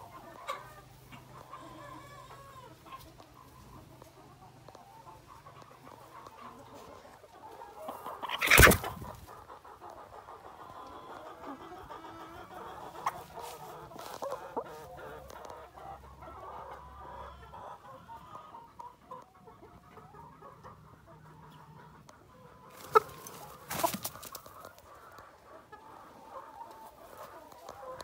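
Hen clucking over and over while sitting on her nest. There is one loud sudden sound about a third of the way in, and two sharp knocks near the end.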